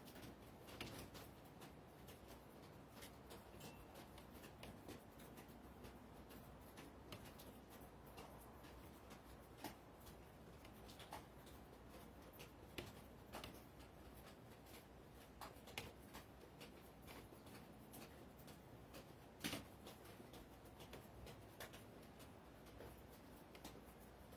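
Near silence with faint, irregular clicks and taps, one louder tap about twenty seconds in.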